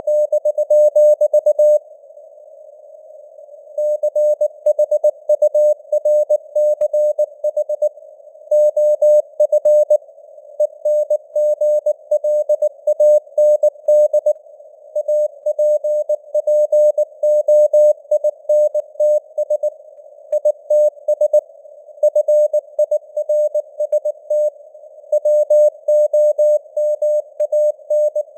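Morse code sent at 19 words per minute: a single mid-pitched tone keyed on and off in dots and dashes, like a CW signal heard on a ham radio receiver, over a faint hiss of simulated radio noise. The keying stops for about two seconds near the start, a gap between words, then runs on.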